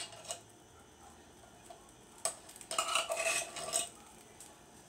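Metal fork scraping and clinking inside a tin can, digging out the last of the corned beef hash. There is a single click just after the start, another click a little past two seconds in, and then a burst of scraping about three seconds in.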